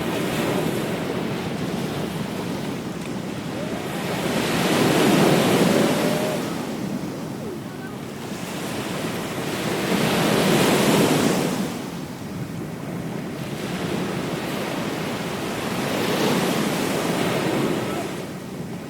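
Ocean surf breaking on a beach, the wash of waves swelling and fading three times, about every five to six seconds.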